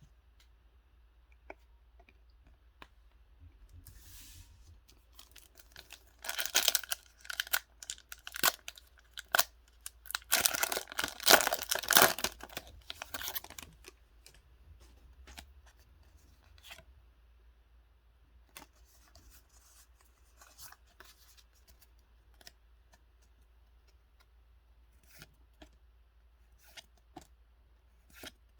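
Pokémon card box packaging being torn open by hand. There is a short rip about six seconds in, then a longer stretch of tearing and crinkling from about ten to thirteen seconds. Light handling clicks and rustles come before and after.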